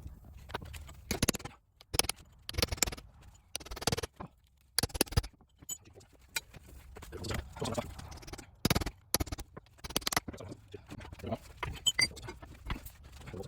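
Irregular metallic clinks and knocks of hand tools working on the steering knuckle and spindle of a Dana 44 front axle, a few strikes ringing briefly.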